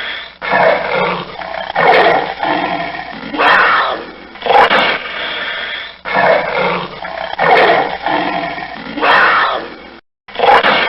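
Panther roaring, a run of repeated calls with a new one starting every second or so, broken by a brief cut to silence near the end.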